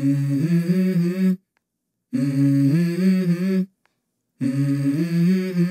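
A person humming a short tune on steady, stepping notes, the same phrase three times with short pauses between.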